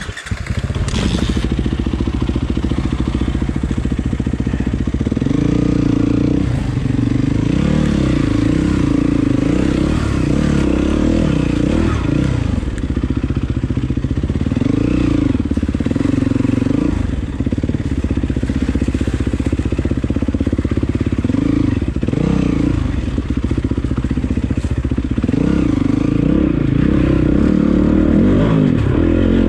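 Enduro motorcycle engine being ridden, loud and continuous, its revs rising and falling every second or two as the throttle is worked.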